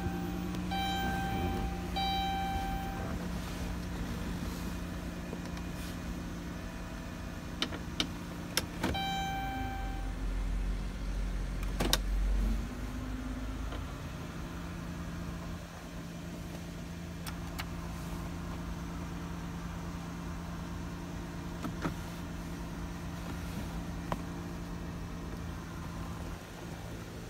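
Cabin of a 2020 Dodge Grand Caravan GT with the engine idling, a steady hum throughout. A repeating electronic chime sounds in the first few seconds and again around eight seconds in, and a few sharp clicks come around eight and twelve seconds.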